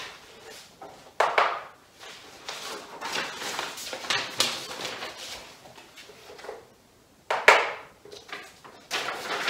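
Paper picture cards being pulled off a whiteboard and handled in a stack: rustling paper, with a sharper, louder rustle about a second in and the loudest one about seven and a half seconds in.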